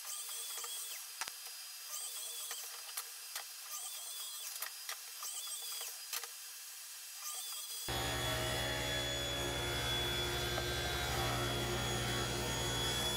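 Woodshop saws, faint. First a short sound repeating about every second as boards are crosscut on a sliding miter saw. Then, from about eight seconds in, a table saw motor running with a steady hum.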